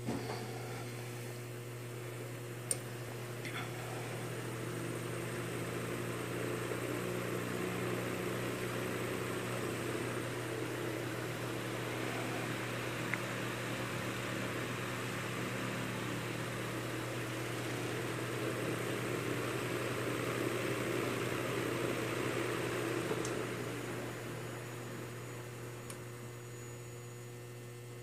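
Antique Eck Hurricane electric fan with brass blades spinning up and running: a steady motor hum under a rush of air from the blades that builds over the first twenty seconds and eases off after about 23 seconds. A single click about three seconds in.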